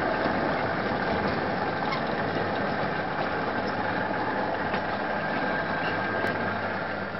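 Model train running on the layout's track: a steady rumble of wheels over the rails with a low electric hum and light clicks. It eases off slightly near the end.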